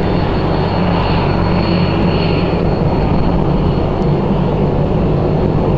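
Aircraft engine noise, a steady low drone with a faint high whine above it.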